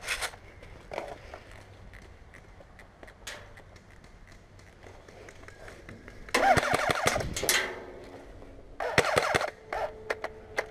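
Two bursts of full-auto fire from airsoft electric rifles: rapid clicking over a motor whir, the first a little over a second long, the second shorter. A few single sharp clicks come before them, and a faint steady tone starts near the end.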